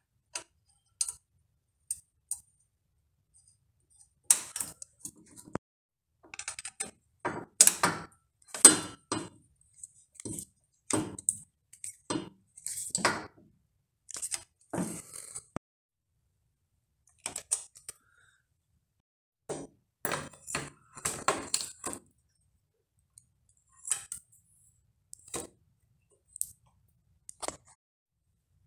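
Irregular clicks, taps and metallic clinks of small bicycle brake parts and a pivot bolt being handled as a V-brake arm is fitted to the frame's brake boss.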